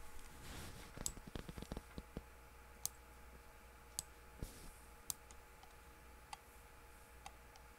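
Computer mouse clicking while a map view is dragged and tilted: a quick cluster of clicks at first, then single sharp clicks about a second apart, over a faint steady hum.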